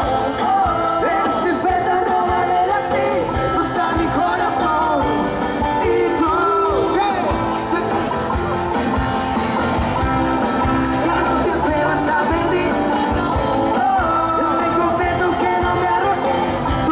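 Live pop-rock band playing at full volume through a PA system, with electric guitars, bass and drums, and sung vocals over the top.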